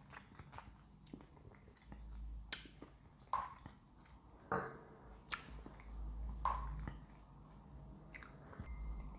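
Faint wet mouth sounds from someone tasting whisky: lip smacks, tongue clicks and swishing as the spirit is worked around the mouth. Scattered sharp clicks sound through it.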